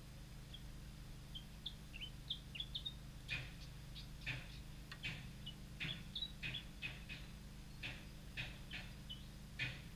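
Birds chirping. Short high chirps come first, then from about three seconds in a run of short, sharp calls, one or two a second.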